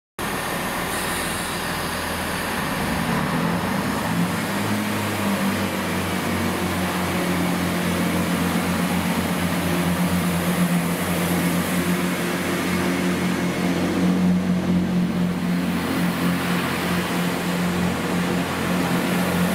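A train running at a station: a steady low engine drone whose pitch rises a little over the first few seconds and then holds.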